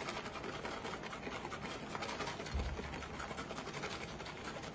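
Plastic packet of bacon bits rustling and crackling as it is shaken, the bits scattering onto a dish of iced cinnamon rolls. There is a soft low bump about two and a half seconds in.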